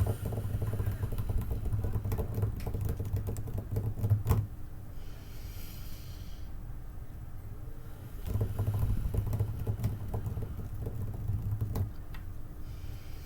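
Fingertips drumming lightly and rapidly on a desk to make a raindrop-like pattering during a long slow exhale. There are two stretches of tapping, the first about four seconds long and the second starting about eight seconds in, with a soft breath drawn in between.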